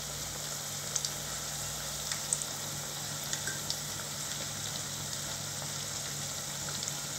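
Flour-coated ivy gourd pieces deep-frying in hot oil: a steady sizzle with a few small pops scattered through it.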